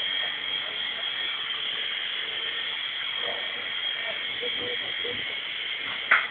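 Picoo Z Sea King mini RC helicopter's small electric rotor motors running with a steady high-pitched whine, and a sharp click near the end.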